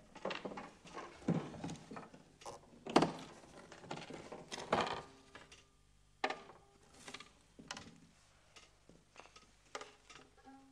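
Objects being handled and moved about in a rummage: a quick run of knocks, scrapes and rustles, loudest in the first five seconds, then a few scattered taps. A plucked string note starts right at the end.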